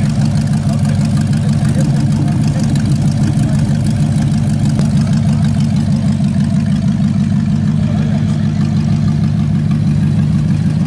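Car engine idling with a steady, deep note as the car creeps past at walking pace.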